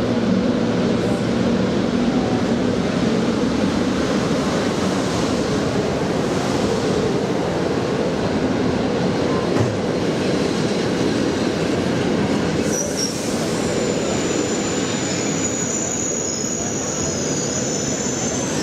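Intercity passenger train running on the rails with a steady rumble. About two-thirds of the way through, a high-pitched wheel squeal sets in and carries on.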